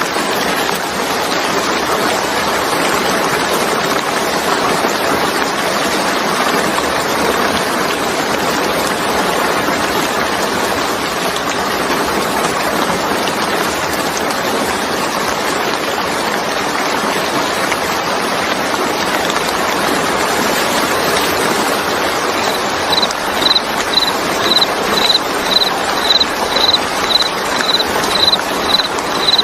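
Steady rain falling, an even hiss. About three quarters of the way through, a short high chirp starts repeating about twice a second over the rain.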